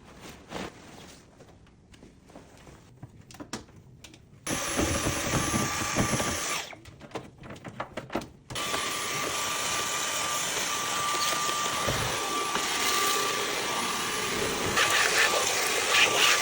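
Vacuum cleaner switched on briefly, cut off, then switched on again and run steadily with a faint high whine. The first few seconds hold only light handling clicks.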